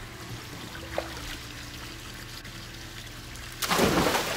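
Swimming-pool water trickling and lapping, then a sudden louder rush of noise about three and a half seconds in.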